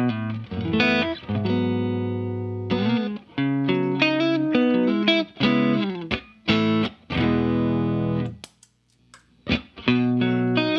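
Fender Stratocaster electric guitar played through a compressor pedal into a Vox AC30 amp: picked notes and chords, some held and ringing out with long sustain. The playing stops briefly about two-thirds of the way through, then picks up again.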